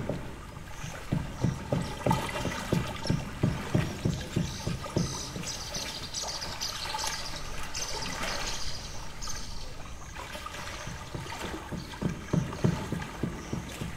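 Hammering on a boat, heard as even dull knocks about three a second, stopping about four seconds in and starting again near the end. Between the bouts, lake water lapping and trickling.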